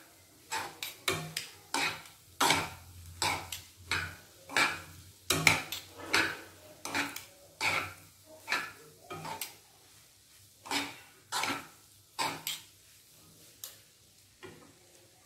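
Two steel spoons scraping and clattering against a kadai as noodles and rice are tossed and mixed, in quick uneven strokes about one or two a second. The strokes thin out and grow fainter near the end.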